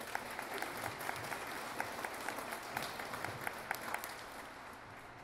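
Audience applauding. The clapping fades away near the end.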